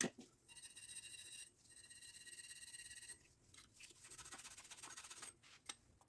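Faint, high-pitched rasping in three runs of about a second and a half each, the first two with a thin whistling ring in them, opened by a sharp click and followed by another click near the end.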